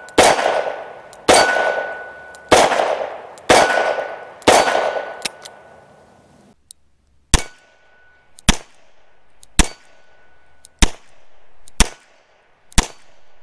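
Rock Island Armory AL9.0 9mm revolver firing 124-grain hand loads from a moon clip, with the ring of steel targets behind each shot. Four shots in the first half each have a long ringing tail. After a sudden break, six more shots come about a second apart.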